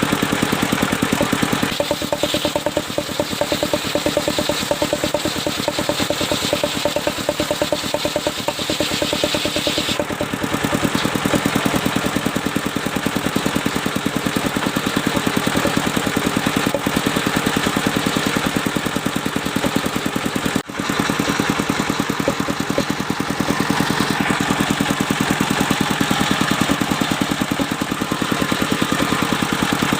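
Engine of a mobile circular-saw sawmill running steadily with an even, rapid pulse, with a brief break about two-thirds of the way through.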